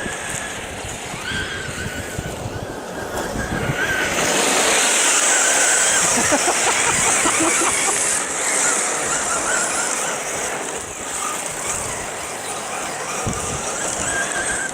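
Electric RC cars running on a dirt track, with a thin wavering whine from the brushless motors over a hiss of tyres and flung dirt. The hiss swells for several seconds from about four seconds in, then eases off.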